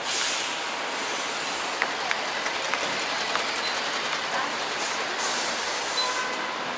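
Steady street rumble beside a row of green city buses at the kerb, with small clicks and a hiss lasting about a second, about five seconds in.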